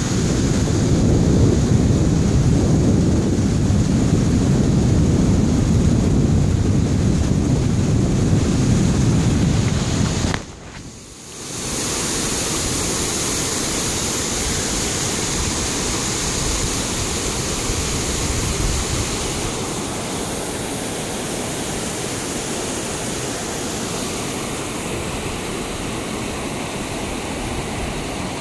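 Steady rush of churning river water, with wind buffeting the microphone as a heavy low rumble for the first ten seconds. The sound drops out for about a second near the middle, then the water noise carries on more evenly.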